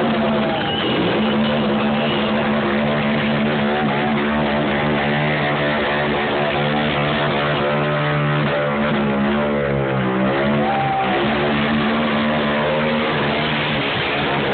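Harley-Davidson motorcycle engine held at high revs during a burnout, its rear tyre spinning on the asphalt. The engine note holds steady, then wavers up and down a little past halfway.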